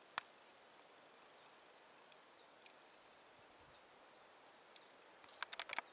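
Near silence, with faint high chirps of a distant small bird now and then. There is a single sharp click just after the start and a quick run of several clicks near the end.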